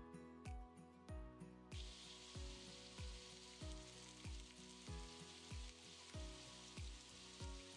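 Sweet potato cubes sizzling as they pan-fry in oil in a wok. The sizzle cuts in about two seconds in, over background music with a steady drum beat.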